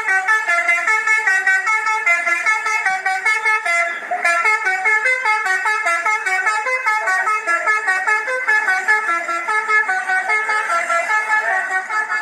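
Telolet horn, a multi-tone musical bus horn, playing a quick melody of short stepped notes without pause, broken only by a brief dip about four seconds in.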